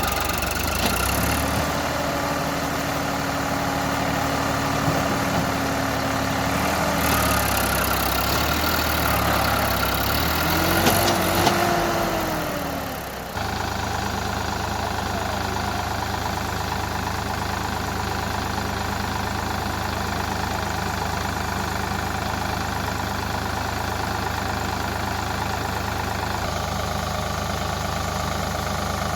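JCB 3DX backhoe loader's diesel engine running, its engine speed rising and falling as the machine works for the first half. About halfway through, the sound switches abruptly to a steady, even drone.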